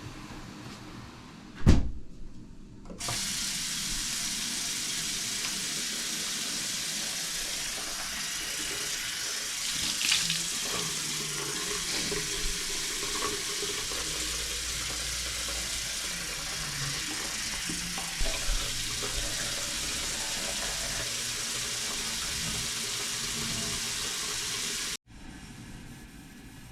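Rain falling: a steady hiss that starts abruptly about three seconds in and cuts off sharply near the end. A single sharp knock comes just before it, about two seconds in.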